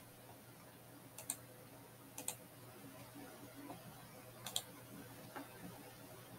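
Faint computer mouse clicks: a single click, then pairs of clicks about a second and two seconds later, over low background hiss.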